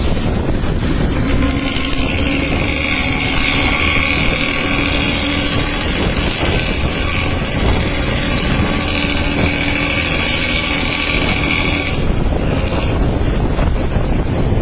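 Bus engine and its growling ('ngorok') exhaust running loudly on the road, with wind buffeting the microphone. A high hiss comes in about two seconds in and cuts off suddenly a couple of seconds before the end.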